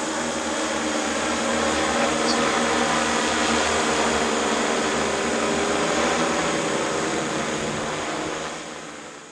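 Eagle XF quadcopter drone hovering, its propellers giving a steady multi-toned buzz that fades out near the end.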